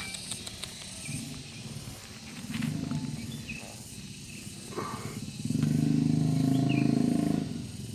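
A cat making low, rumbling vocal sounds close to the microphone, twice, the second time louder and held for about two seconds near the end. Faint bird chirps are heard in the background.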